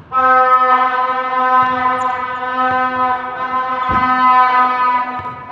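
A horn sounds one long steady note for about five seconds, with a ball bounce on the hardwood court about four seconds in.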